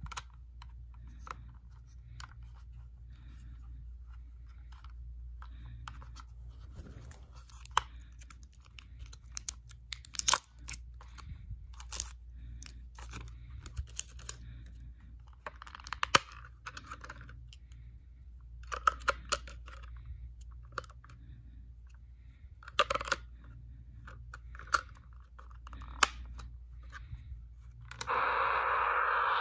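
Scattered clicks and taps of the CF210SP kit radio's small plastic case being handled and pressed together. Near the end the radio's loudspeaker comes on with a steady hiss of static, tuned between stations.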